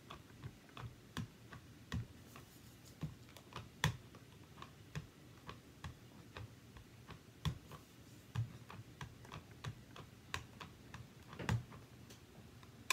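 Light, irregular taps and clicks, about one or two a second, of rubber-stamping supplies being handled on a craft table: an ink pad and a large rubber stamp as the stamp is readied for inking.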